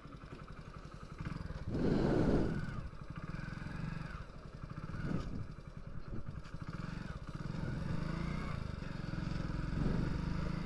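Bike-taxi motorcycle engine running steadily at low speed as the bike rolls along. About two seconds in there is a brief louder rush.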